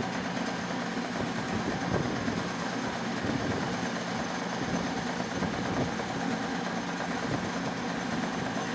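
Lathe running steadily: a constant mechanical hum with a rough whirring noise over it.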